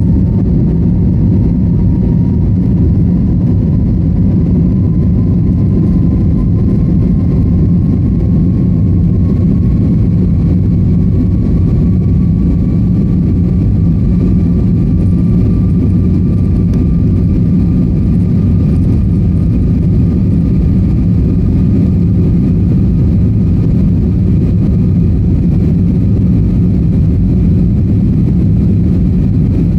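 Steady, loud engine and air noise heard inside an airliner's cabin in flight just after take-off, a dense low rumble with a faint whine that rises slowly in pitch.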